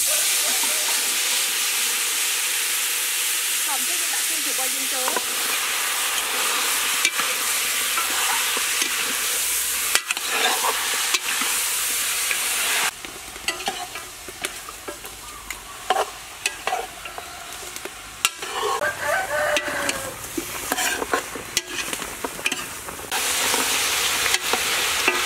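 Oil sizzling loudly in a wok as fish sauce and minced garlic fry. About halfway through the sizzle drops away and a metal ladle scrapes and knocks against the pan as pieces of pig leg are stirred, then loud sizzling comes back near the end.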